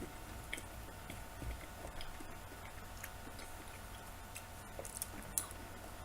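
Chewing of button mushrooms: soft, irregular mouth clicks and squelches over a faint steady hum, with one sharper click a little past five seconds in.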